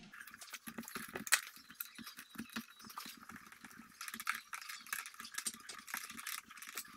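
Irregular light metallic clicks and clinks of small parts and hand tools being handled while a Solex 3800 moped engine's fuel tank and fittings are put back on, with one sharper click about a second in.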